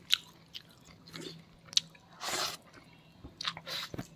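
Eating sounds: chewing and mouth clicks while eating rice and chicken curry by hand, with a few short sharp clicks and a brief wet, noisy smack about two seconds in.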